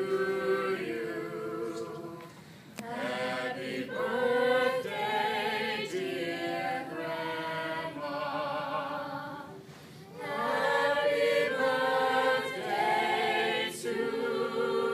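A small mixed group of adult and child voices singing a cappella, several parts together, with held notes. The singing eases off briefly about two seconds in and again near ten seconds in.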